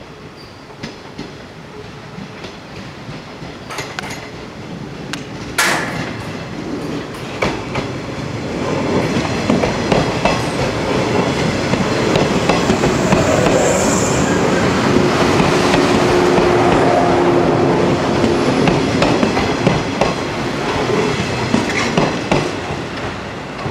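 A yellow JR West electric multiple-unit train passes close by, its wheels clacking over rail joints, with a sharp clack about six seconds in. The sound builds as the train approaches, is loudest as the cars roll past, and eases as it moves away.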